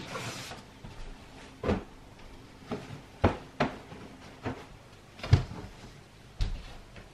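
Bed linen rustling, then a series of about seven light knocks and thumps as beds are made up, the loudest about two-thirds of the way through.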